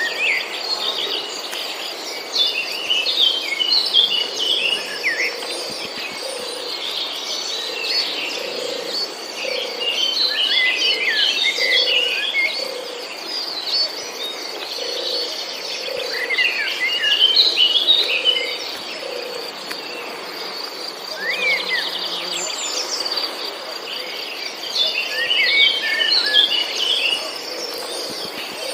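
Garden birds chirping in four bursts of quick, twittering notes, over a steady high-pitched insect drone like crickets.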